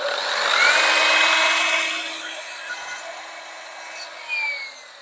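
Electric chop saw starting up with a rising whine and cutting through a pallet-wood upright, loudest in the first two seconds, then the blade spinning down with a falling whine near the end.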